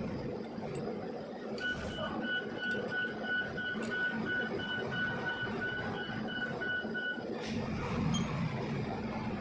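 Rapid electronic beeping, about three beeps a second, starting shortly in and stopping a couple of seconds before the end, over a steady background noise.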